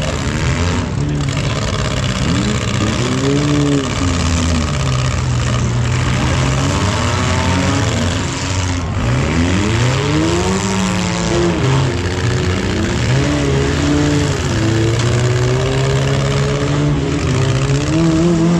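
Several junk race cars' engines revving, several at once, their pitch climbing and dropping repeatedly as they accelerate and back off.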